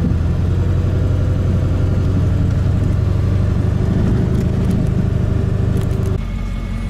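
Pickup truck driving on a rough dirt road, heard from inside the cab: a steady low rumble of engine and tyre noise with rattling. About six seconds in it cuts abruptly to a quieter, steadier low hum.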